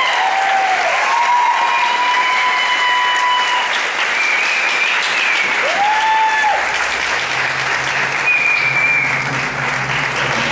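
Audience clapping steadily, with a few long, high held calls ringing out over the applause, most of them in the first half.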